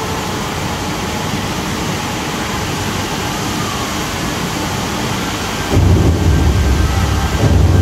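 The HSBC Rain Vortex indoor waterfall gives a steady rush of falling water. About six seconds in, a louder low rumble joins it.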